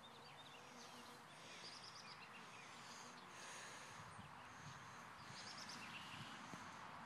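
Near silence with faint birdsong: scattered short, high chirps and trills from small birds.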